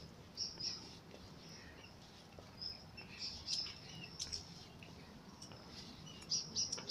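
Small birds chirping in the trees: short, high calls scattered all through, over a faint low steady background noise.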